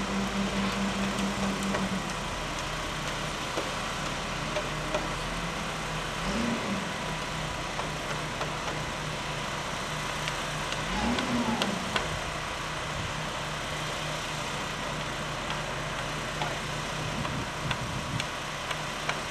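A steady engine-like hum over a constant hiss. Its pitch drops slightly about two seconds in, with a few faint knocks scattered through.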